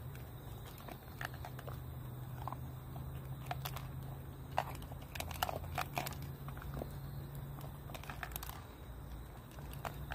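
Small dog eating from a plastic bowl: irregular crunching, chewing and clicks of food and teeth against the bowl, busiest in the middle.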